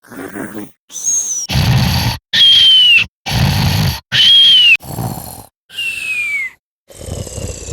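Cartoon emoji snoring sound effect in pitch- and speed-altered versions. A noisy, rumbling snore on the in-breath is followed each time by a falling whistle on the out-breath, about four times over with short gaps. Each whistle is pitched differently, the first highest.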